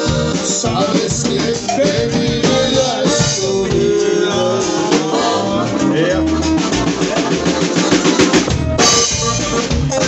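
Live norteño band playing, amplified: accordion melody over a drum kit beat with snare and bass drum.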